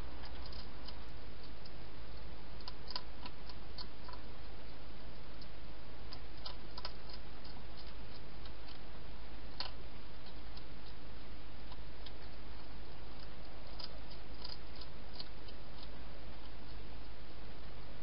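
Wild hedgehog eating inside a plastic feeding box, its chewing heard as irregular sharp crunching clicks in short clusters, over a steady hiss and low hum from the camera.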